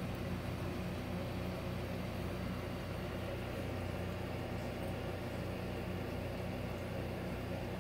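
Aquarium pump humming steadily, a low electric drone with a faint hiss over it.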